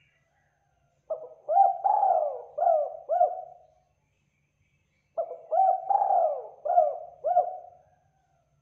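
Spotted dove (tekukur) cooing: two phrases of about five notes each, rising and falling in pitch, about four seconds apart.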